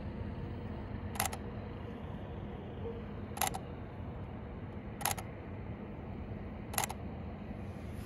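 Canon camera shutter firing four times, about two seconds apart, each release a short sharp click over a steady low background hum.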